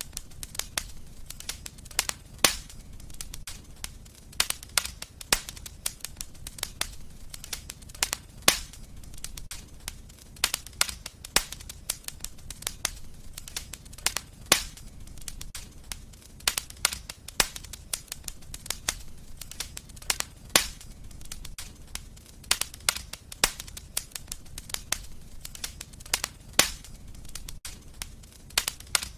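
Fireplace wood fire crackling, with irregular sharp pops and snaps several times a second over a steady low rumble.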